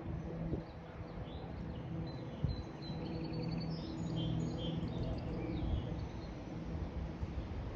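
Small birds chirping in a quick series of short high notes over a steady low rumble. The chirps are clustered in the middle of the stretch.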